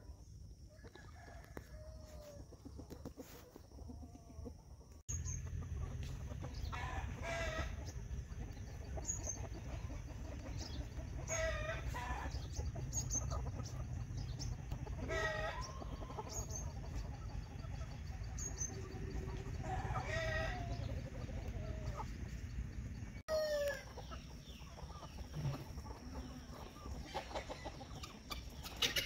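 A free-range chicken flock: roosters crow repeatedly, with four long crows through the middle, among shorter hen calls and clucks.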